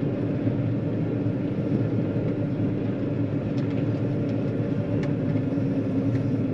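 John Deere 9500 combine running steadily while harvesting corn, heard from inside the cab: an even low hum with a held tone and a few faint ticks.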